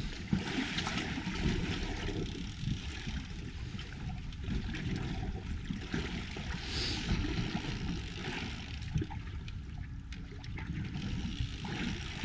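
Water lapping and gurgling against the hull of a slowly moving boat in choppy water.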